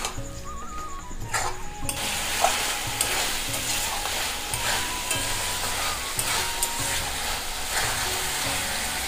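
A steel spatula stirs a spiny gourd curry in a metal kadai, scraping and knocking against the pan. The curry sizzles in the hot pan, with the sizzle setting in about two seconds in.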